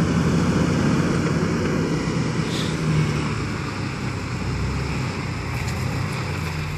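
Jeep Wrangler TJ Rubicon's 4.0-litre inline-six engine running under load as the Jeep crawls up onto a boulder, a steady low engine note that eases slightly after about three seconds.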